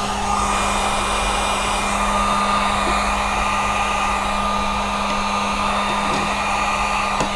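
Handheld electric heat gun running, its fan blowing hot air with a steady rushing hiss over a constant motor hum, warming vinyl wrap so it can be laid down.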